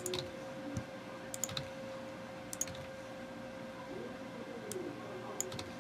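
A few scattered clicks of computer keys, irregularly spaced, over a faint steady hum.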